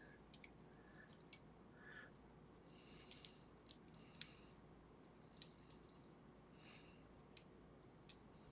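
Faint metal clicks and a couple of short scrapes as a thin shim is worked against the gap between the plug and the housing of a six-pin Kodai pin-tumbler lock. The shim will barely go in because the plug fits very tightly.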